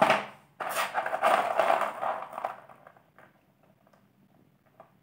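Rudraksha bead necklace with metal bead caps being picked up and handled: a sudden rustle at the start, then about two seconds of beads clattering and clinking against each other, settling to a few faint clicks.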